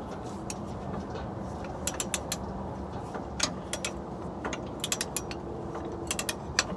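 Hand ratchet wrench clicking in short, irregular runs, with scattered sharp metallic clicks.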